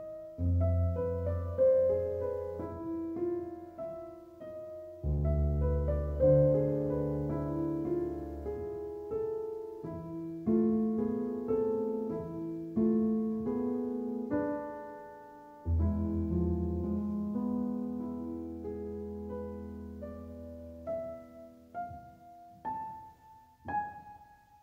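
Calm, slow piano music: a melody of sustained notes that ring and fade, over deep bass notes struck three times.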